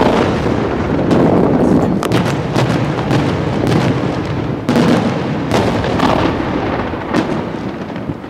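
Aerial fireworks shells bursting in quick succession: a dense, continuous run of booms with sharper cracks standing out about once a second.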